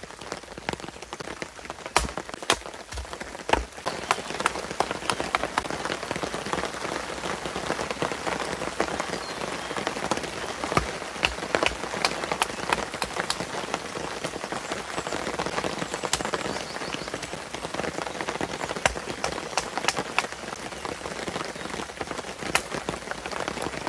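Steady rain pattering, with many sharp clicks and cracks of a knife splitting and shaving small pieces of dry wood into kindling on a tree stump.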